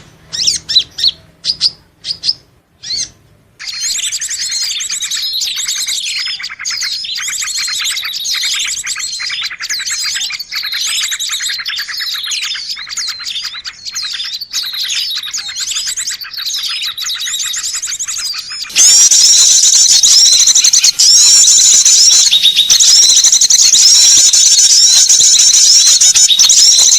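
Recorded small songbirds twittering, played as a lure call: a few separate chirps, then from about four seconds a fast, continuous twittering song, which switches near nineteen seconds to a louder, denser run of rapid trills.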